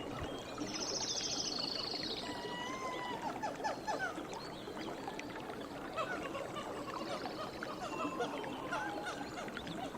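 Forest ambience: many birds calling with short chirps and whistled notes over a dense background chatter of animal calls. A fast high trill sounds twice, near the start and again about seven seconds in.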